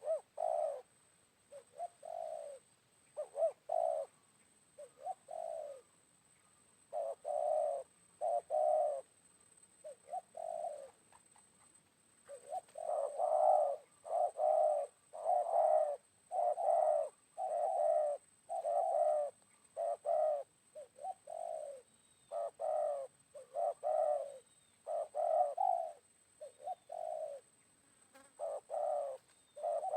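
Spotted dove cooing, repeated coo phrases in steady series with a short pause partway through, and a few faint high chirps of a small bird in the second half.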